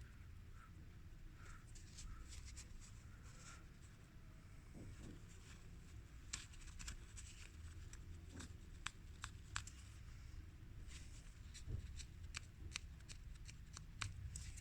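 Faint light clicks and taps of small parts of a CD player's disc mechanism being handled and fitted, scattered and coming more often in the second half.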